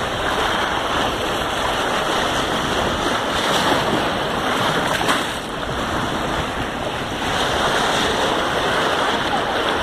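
White water of a river rapid rushing and splashing around a boat's bow as it runs through the rapid, a steady loud noise.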